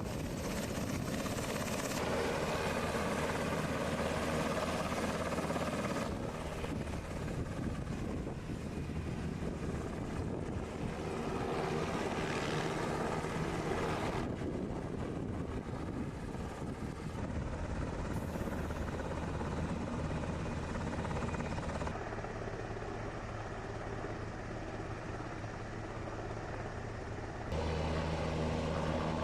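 UH-60 Black Hawk twin-engine helicopter running: steady turbine and rotor noise with a low hum. Its sound changes abruptly several times.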